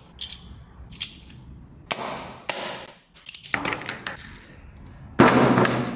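Small metal keychain toy pistols being handled and worked: a string of short, light metallic clicks and clacks. A loud sound cuts in near the end.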